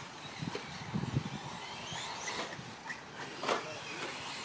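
Faint whine of electric 4WD RC short-course trucks' motors, gliding up and down in pitch as they drive on the dirt track.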